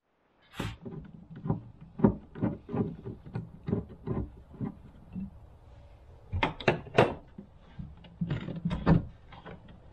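Irregular knocks, taps and rustles as the air filter and housing of an S&B cold air intake are handled. The loudest knocks come a little past halfway and again near the end.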